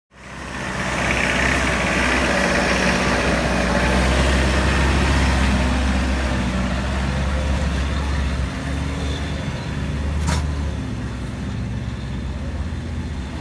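A motor vehicle's engine running steadily, fading in at the start, with a single sharp knock about ten seconds in.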